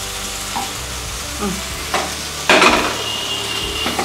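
Masala frying in hot oil in a pan, a steady sizzle while it is stirred, with a louder clatter of the utensil against the pan about two and a half seconds in.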